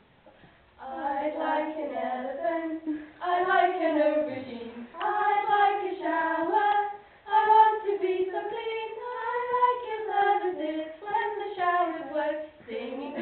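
A small group of women singing a song together, unaccompanied. The singing starts about a second in and goes in short phrases with brief breaks between them.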